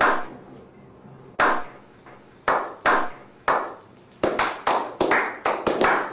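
A slow clap by a small group of men: single hand claps with an echo, more than a second apart at first, then speeding up into quick clapping of about five claps a second near the end.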